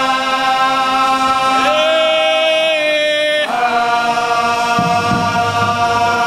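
A group of men singing a traditional Good Friday chant without accompaniment, in long drawn-out notes. The pitch moves to a new note about a third of the way in, then steps up again about halfway through.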